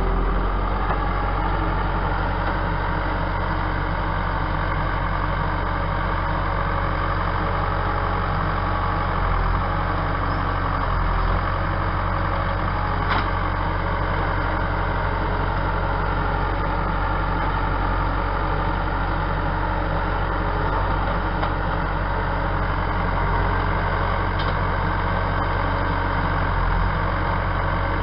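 An engine running steadily, a low drone that holds even throughout, with one short sharp knock about thirteen seconds in.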